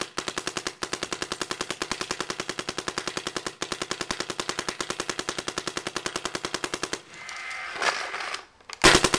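Planet Eclipse Ego 09 paintball marker firing a long string of rapid shots, well over ten a second, which stops about seven seconds in. After a short lull, another rapid burst starts near the end.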